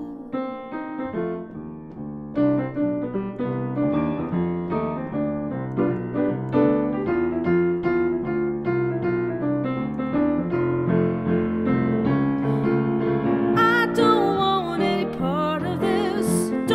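Grand piano played solo, a flowing run of chords and melody notes. Near the end a woman's voice comes in singing over the piano.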